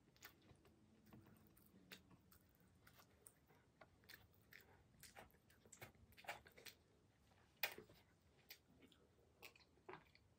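Faint close-up eating sounds: soft chewing of hand-eaten rice, with scattered small wet mouth clicks and lip smacks, one a little sharper about three quarters of the way through.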